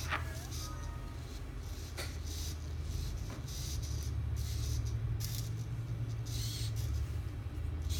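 A steady low hum of the room, with a click as a light-up robot cube is set down on the desk at the start. Short hissing bursts come and go every second or so.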